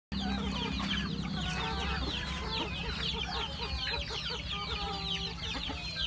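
A flock of chickens calling: many overlapping high, falling peeps, with a hen's quick run of repeated clucks through the middle, over a low steady hum.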